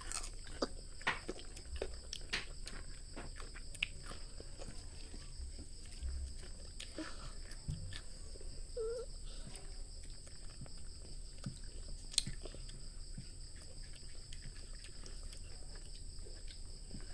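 A small child biting and chewing raw cucumber slices: soft crunches and wet mouth clicks, thickest in the first few seconds, with one sharp click about twelve seconds in. A steady high-pitched whine runs behind.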